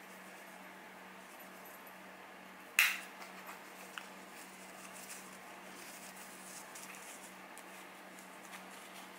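A cosmetic compact case clicks sharply about three seconds in, followed by a couple of fainter ticks and light handling noises, over a low steady hum.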